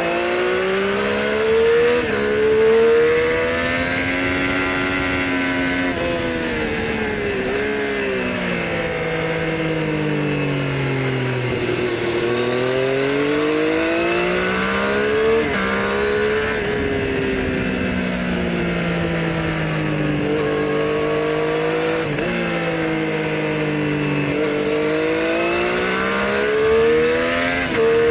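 Triumph Street Triple's inline three-cylinder engine under hard riding on track: pitch climbs through the gears with short dips at each upshift, then falls away when slowing, in several sweeps. Heard from a microphone under the seat.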